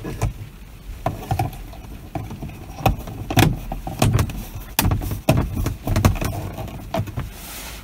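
Irregular clicks and knocks of a reading-light assembly being handled and fitted back into place, with a few duller thuds among them.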